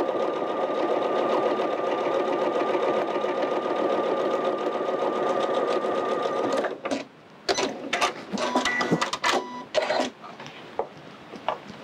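An Elna 770 computerized sewing machine stitching steadily at an even speed, stopping abruptly about seven seconds in. After it stops comes an irregular run of sharp clicks and taps as the work is handled at the needle.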